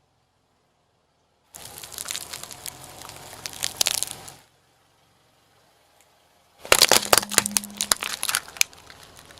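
Things being crushed under a car tyre, in two separate passes. First comes a stretch of crackling and crunching about a second and a half in, then a louder run of sharp cracks and snaps near the end.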